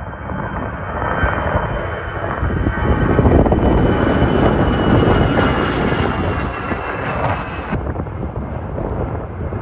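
Airbus A320 twin turbofan jet passing low overhead. A dense engine rumble swells to its loudest about halfway through and then fades. A thin high whine over it drops slowly in pitch as the aircraft goes past.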